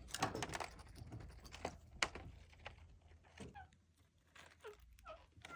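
Pet parrot vocalizing in a string of short chattering calls, several of them brief falling notes, with a sharp click about two seconds in.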